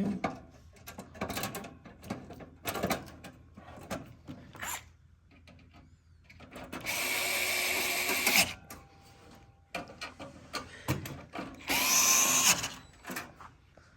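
Small power drill-driver running in two bursts, the first about a second and a half long, the second shorter, with a motor whine that rises in pitch at the start of the second. Clicks and knocks of parts being handled fall between.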